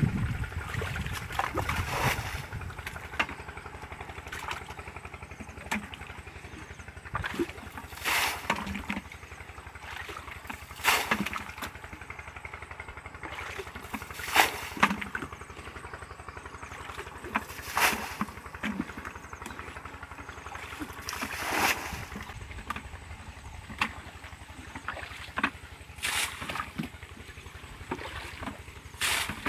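Short splashes of water, about every three to four seconds, over a steady low rumble.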